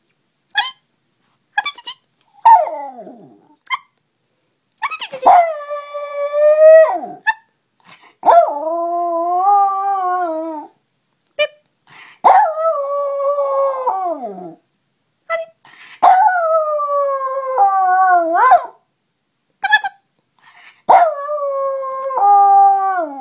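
Yorkipoo dog howling in about five long, wavering notes of two to three seconds each, several falling away in pitch at the end. The howls answer short beeps a person makes in the gaps between them.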